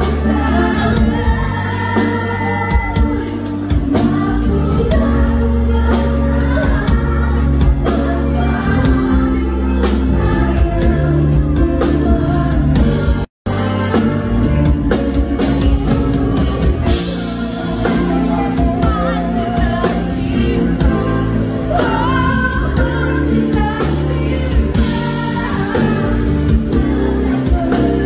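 A woman singing a slow pop song into a handheld microphone over instrumental backing. The sound drops out for a moment about halfway through, where one clip is cut to the next.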